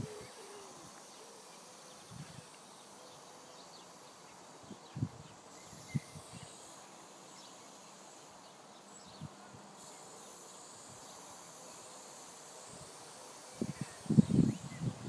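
Aerosol spray paint can hissing steadily as paint goes onto the wall, with a few soft knocks. Louder low bumps come in near the end.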